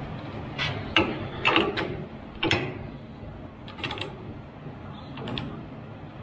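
Torque wrench clicking and ratcheting as it is set and its socket is fitted onto a nut, in a string of irregular sharp metal clicks.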